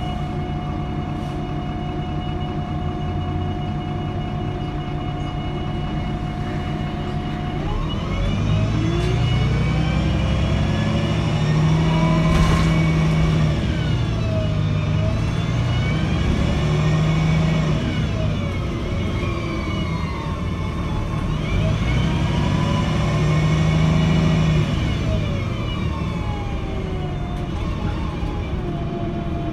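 MAN NL223 city bus's diesel engine heard from inside the passenger cabin: running steadily at idle, then about seven seconds in pulling away, its engine note rising and falling as the bus accelerates, eases off and accelerates again, and settling back to a steady idle near the end. A single knock sounds about twelve seconds in.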